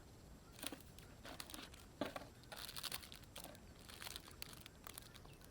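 Plastic bags and food packaging crinkling and rustling in irregular bursts as food is rummaged out of a bag.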